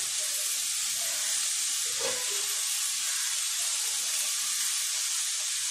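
Sliced tindora (ivy gourd) sizzling steadily in oil in an open kadai, a fine even hiss as the salted slices fry in their own released water.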